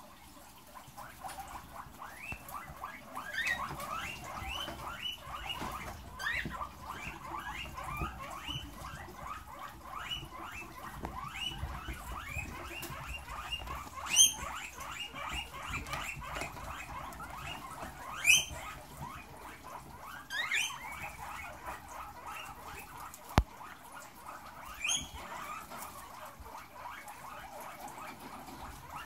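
A herd of guinea pigs eating fresh cucumber and tomato together, with dense rapid chewing and crunching. Several loud rising squeals cut through, and there is one sharp knock a little past the middle.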